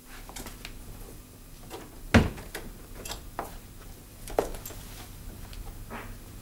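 A room door being shut, with a sharp knock about two seconds in, then a fainter click a couple of seconds later and scattered soft knocks.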